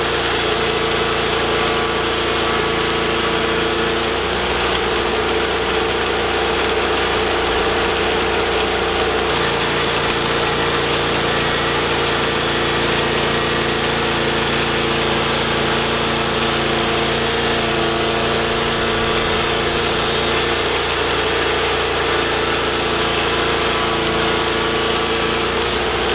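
TimberKing 1220 bandsaw mill running steadily, its engine turning at a constant speed while the band blade saws through a mesquite log.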